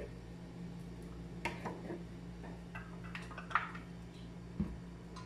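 Scattered light taps and clicks as chopped garlic and onion are scraped off a wooden chopping board with a knife and dropped into an aluminium pot, over a low steady hum.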